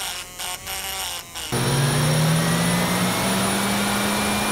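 A dynamic balancing machine's belt drive spinning a small turbojet's compressor wheel and shaft assembly for a balance run. It starts suddenly about a second and a half in and then runs steadily, with a steady hum, a faint whine slowly rising in pitch and a thin high whine. Before that there are a few short, broken sounds.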